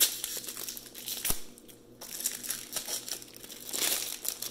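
The plastic wrapper of a 2020 Mosaic Football cello card pack being torn open and pulled apart by hand, crinkling in irregular bursts, with a sharp click about a second in.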